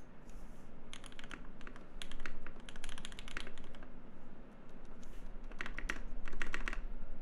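Mechanical keyboard being typed on fast, in quick runs of clacking keystrokes with short pauses between them.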